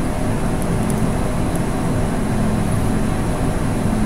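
A machine running steadily: a constant low hum under an even hiss.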